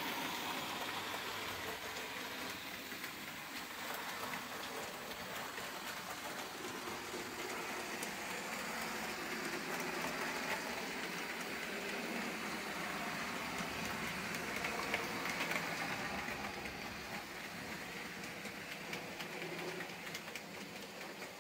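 Lima OO-gauge Class 31 model diesel locomotive and its oil tank wagons running along the track: a steady hissing whirr of the electric motor and wheels on the rails, with scattered light clicks.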